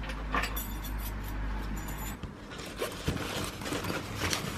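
Rustling and short scrapes of an OGIO nylon backpack being handled and packed, with zippers clicking and rasping as its pockets are worked.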